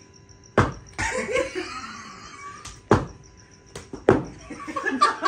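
Three sharp smacks of a rubber slipper being struck, with men laughing in between.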